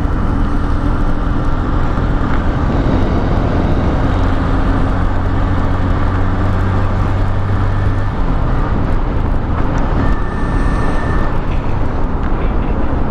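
Motorcycle ridden at a steady speed: the engine runs evenly under a constant rush of wind and road noise.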